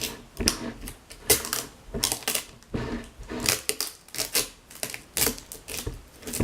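Sticky tape being pulled off a plastic glue bottle: a quick, irregular series of short crackling rips and rustles of handled plastic.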